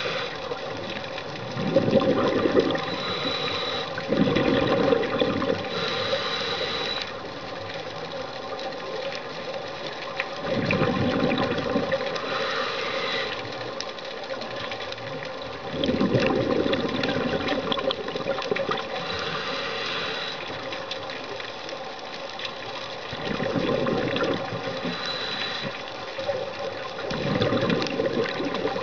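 Scuba diver breathing through a regulator underwater: bursts of exhaled bubbles rumble every five or six seconds over a steady mechanical hum.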